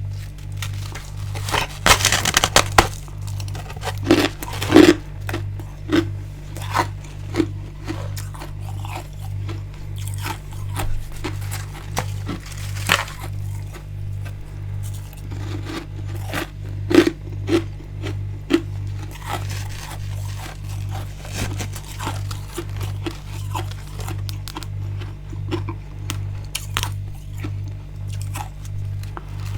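Mouth biting and chewing built-up freezer frost and ice: crisp crunches and scrapes, the loudest bunched about two to five seconds in. A steady low pulsing hum runs underneath.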